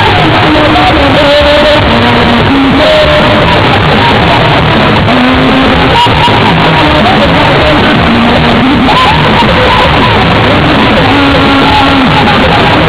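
Loud live music: a man singing into a handheld microphone over drumming and a dense crowd, his voice carrying long held, melodic phrases.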